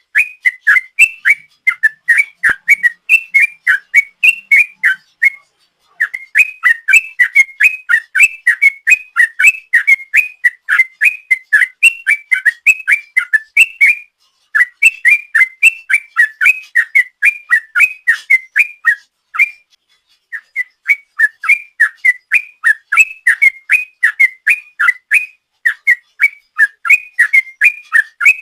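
Yellow-vented bulbul (trucukan) singing a long, fast run of short bubbling whistled notes, about four to five a second, pausing briefly three or four times.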